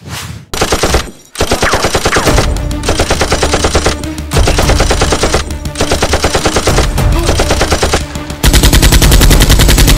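Machine-gun fire sound effect laid over a Nerf blaster fight: several long bursts of rapid automatic shots with short gaps between them. The loudest burst starts about eight and a half seconds in.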